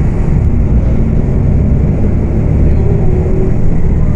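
Volksbus 18.280 OTS city bus's diesel engine running under way with a loud, steady low drone.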